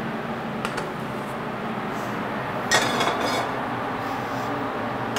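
A metal pan and utensils clinking on a commercial gas range: a few light clicks, then a louder clatter about three seconds in, over a steady background hiss.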